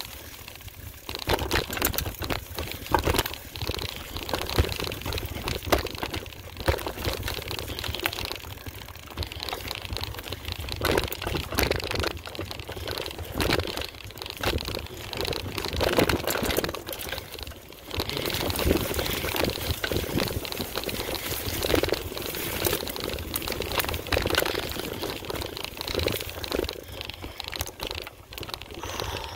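A mountain bike being ridden over rough ground: tyres grinding on the trail surface, with many short clicks and rattles from the bike. The noise is dense and uneven, with a brief lull about two thirds of the way through.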